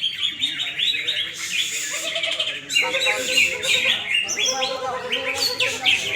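Cucak hijau (greater green leafbirds) singing at a contest: a continuous, fast stream of chirps and trills from several birds at once.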